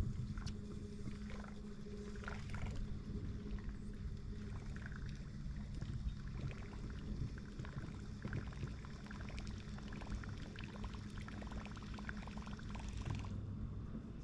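Yamaha 90 SHO outboard engine running steadily at low speed, a low even hum, with small splashes of water lapping against the hull.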